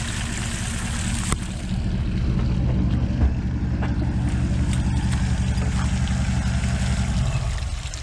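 Toyota LandCruiser engine running under load as the bogged vehicle drives out of a mud hole, building about a second and a half in and dropping away shortly before the end. A single sharp knock about a second in.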